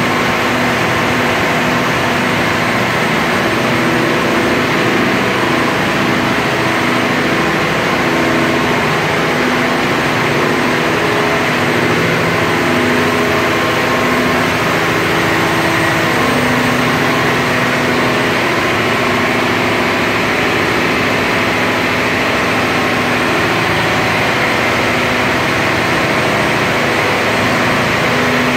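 Mitsubishi S12R-MPTA turbocharged V12 marine diesel engine running steadily on its test run after a complete overhaul, a loud, even drone.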